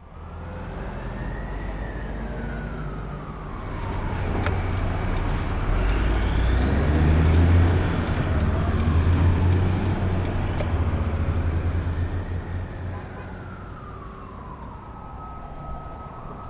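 Emergency vehicle siren in a slow wail, its pitch rising and falling every five or six seconds, over a low vehicle rumble. It grows louder to a peak about halfway through, then fades as it passes.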